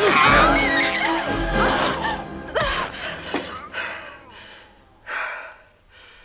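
Film soundtrack: music under high gliding creature squeals in the first couple of seconds, then a woman's heavy, gasping breaths about once a second that grow fainter.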